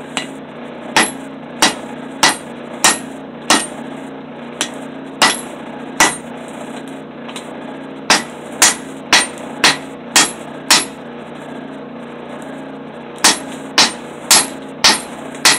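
Hand hammer forging a red-hot steel cleaver blade on an anvil: sharp ringing blows about one to two a second, in three runs with short pauses between. A steady low hum runs underneath.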